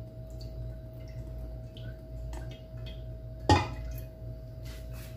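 Olive oil poured from a bottle into an empty aluminium pressure cooker pot: a faint trickle and dripping over a steady hum, with one sharp knock a little past halfway through.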